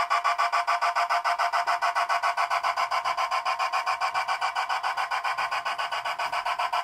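A G scale model steam locomotive's sound unit chuffing rapidly and evenly, about eight hissy beats a second.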